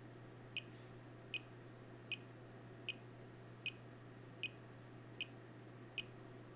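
Faint short high ticks, evenly spaced about every three-quarters of a second, over a low steady hum. No continuity beep sounds as the multimeter probe moves across the repaired NAND pads: none of them is shorted to ground.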